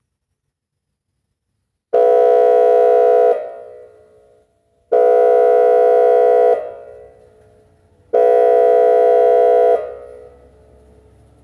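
Whelen electronic outdoor warning siren sounding three short blasts of a steady, unwavering tone, each starting abruptly and cut off into a fading echo. These are attention tones for a test of the emergency warning system.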